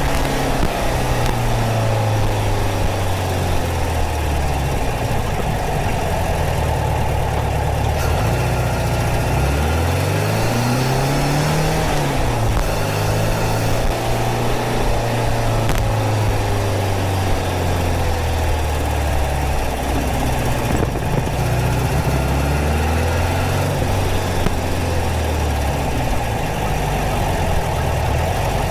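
Porsche 914's air-cooled 2.0-litre flat-four engine running at low town speeds, its pitch sinking over the first several seconds, rising steeply as it revs about ten seconds in, then settling and easing off again. A steady hiss of wind and road noise runs underneath.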